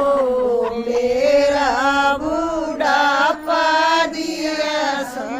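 Women singing a Haryanvi folk song in a chant-like style, holding long, slightly wavering notes.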